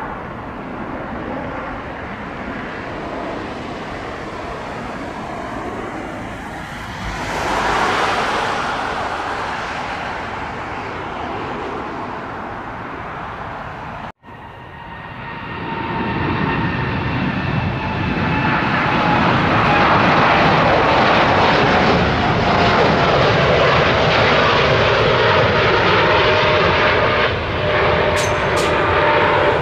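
Jet airliner engines at takeoff/climb power: a steady rushing jet noise that swells about eight seconds in, cuts off abruptly near the middle, then returns and builds louder with a steady engine whine over it.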